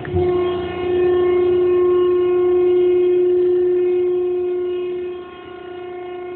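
PTR 60-inch baler's hydraulic pump motor running with a steady whine, switching on with a click. About five seconds in it drops to a quieter level and keeps running.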